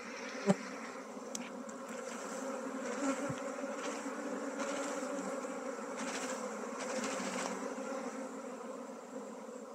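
Honeybees buzzing in a steady hum, a colony just shaken out of a log hive onto a sack and crawling and flying into a new box hive. A short click about half a second in.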